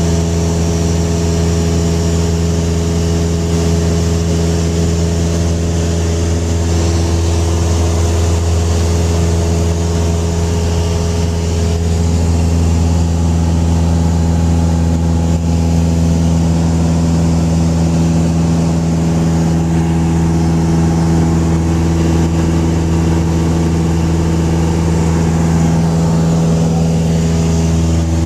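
Steady drone of a light plane's engine and propeller in level flight, heard from inside the cabin, over a constant hiss of rushing air.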